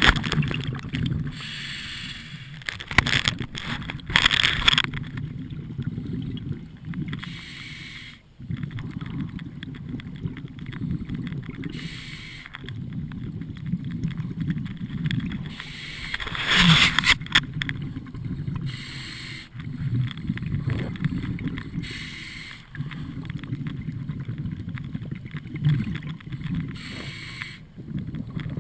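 Scuba diver breathing through a regulator underwater: a hissing gush of exhaled bubbles every few seconds over a low steady rumble, muffled through the camera's waterproof housing.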